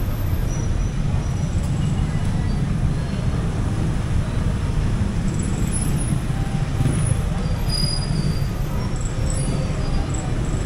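Outdoor street ambience: a steady low rumble of road traffic, with faint short high sounds scattered through it.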